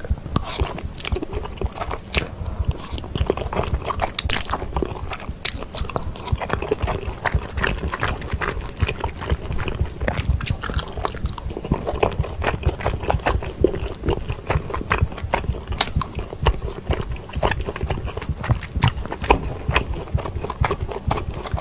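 Close-miked wet chewing and slurping of wide glass noodles, with a dense run of sticky smacking clicks throughout.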